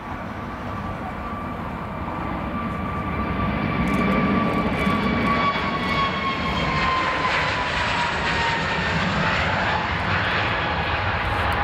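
Jet engines of an Airbus A321neo moving past on the runway for departure: a steady rumble under a clear engine whine that slides gradually lower as it goes by. The sound swells over the first few seconds and then holds loud.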